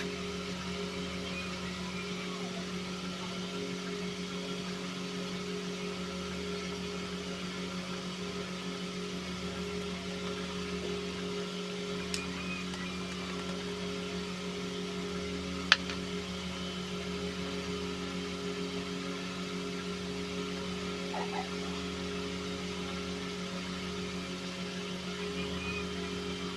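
A steady machine hum with several fixed low tones. A faint click comes about twelve seconds in, and a sharp click about sixteen seconds in.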